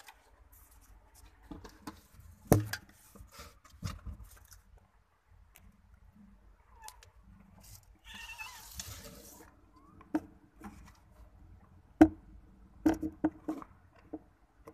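A newborn-kitten birthing box being handled: scattered sharp knocks and rustles, the loudest about two and a half and twelve seconds in, with a short wavering cry about eight seconds in, while the mother cat licks her newborn kitten.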